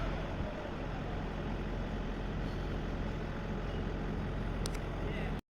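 A heavy engine running steadily at idle, a low even hum. The sound cuts out abruptly near the end.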